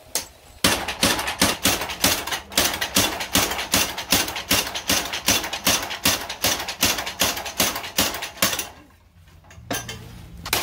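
Belt-driven mechanical power hammer striking steel held in tongs in a fast, even run of metal-on-metal blows, about four a second. The blows stop near the end, leaving a couple of single knocks.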